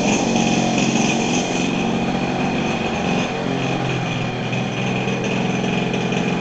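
Zenoah G26, a 26 cc single-cylinder two-stroke gasoline engine with magneto ignition, running at a steady speed while turning the propeller of a model airplane on a ground run.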